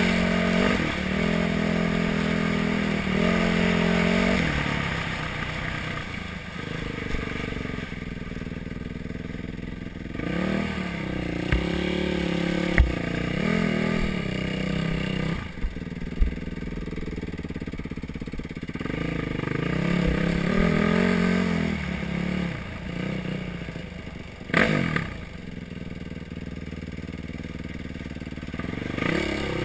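Yamaha WR450F dirt bike's single-cylinder four-stroke engine riding a rough trail, revving up and backing off again and again as the throttle is opened and closed. A few sharp knocks as the bike goes over rocky ground.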